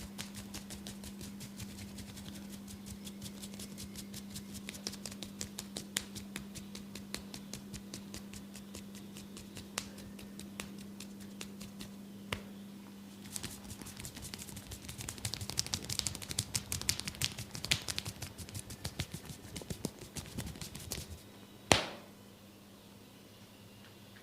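Tok sen massage: a wooden mallet tapping quickly on a wooden stick, several light taps a second. The taps grow denser and louder about halfway through, and one sharp, much louder knock comes near the end.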